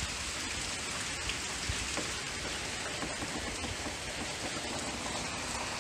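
Heavy rain falling in a steady, dense hiss, with scattered faint ticks of drops.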